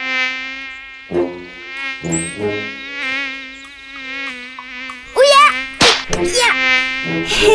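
Cartoon mosquito buzzing: a steady, high, thin whine whose pitch wavers slightly. About five seconds in there is a louder flurry of sharp sounds, including a smack as the puppy swats at the mosquito on his ear.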